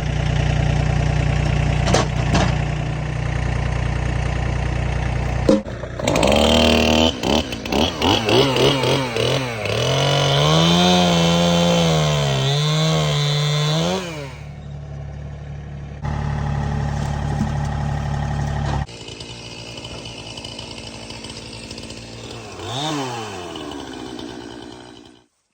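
Gas chainsaw running and cutting, its engine pitch rising and falling as it works. A steady low engine drone fills the first few seconds, and the sound changes abruptly several times.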